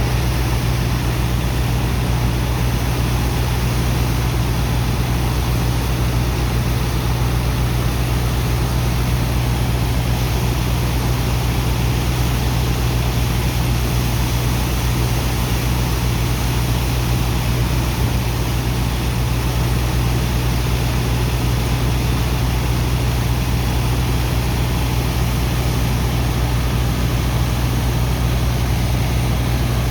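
Sand dredger's engine and pump machinery running steadily: a deep continuous drone with an even rushing noise over it, unchanging throughout.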